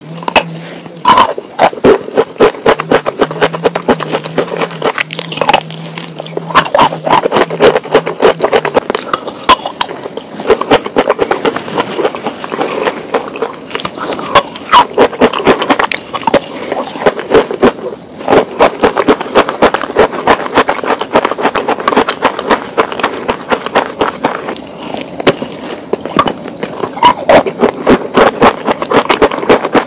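Close-up crunching as a hard, brittle slab is bitten and chewed: many sharp cracks in dense clusters with short breaks between bites.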